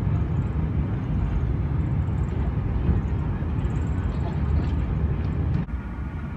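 Steady deep rumble of cabin noise inside a Boeing 747 airliner, engines and airflow. About five and a half seconds in it cuts abruptly to a quieter cabin hum.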